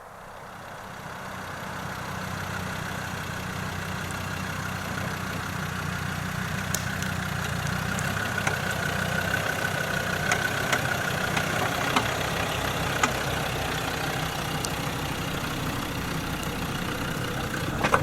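An engine running steadily, fading in over the first two seconds, with a few scattered clicks.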